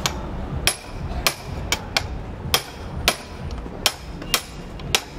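Hammer striking a hand impact driver set on the clutch centre nut of a 250cc single-cylinder motorcycle engine: about ten sharp metallic blows, roughly every half second, to break the nut loose without the clutch hub spinning.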